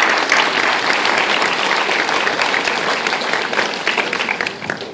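Audience applauding: dense clapping from a crowd that dies away near the end.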